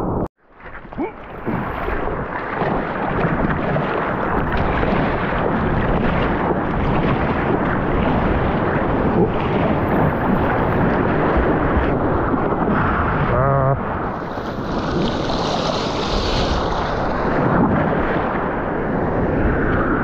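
Wind buffeting the camera's microphone over rushing ocean surf, a steady loud roar. It cuts out for a moment near the start.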